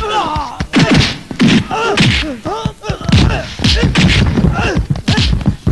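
A film fight's punch and whack sound effects: a rapid run of thuds and smacks, mixed with men's yells and cries and the clatter of falling plastic buckets.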